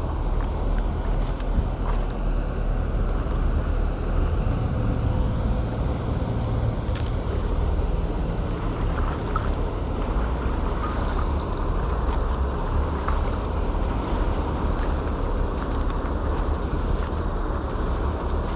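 A heavy engine running steadily, a low rumble at an even level, with a few faint clicks.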